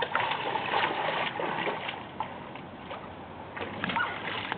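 Shallow water splashing and sloshing as a person wades and scoops at it with her hands, an irregular patter of small splashes, busiest in the first second or so.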